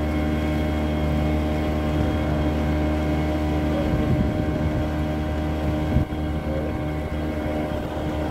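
Fishing boat's engine running steadily while the boat is under way, an even multi-toned hum, with one brief thump about six seconds in.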